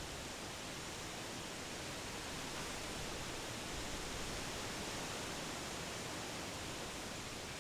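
Wind blowing through trees, the leaves rustling in a steady wash of noise that swells slightly in the middle.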